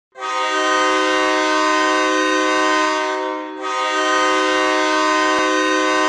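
Goal horn: a loud, steady multi-note air horn chord blown in two long blasts, the first about three seconds long, the second starting about half a second after it and held to the end.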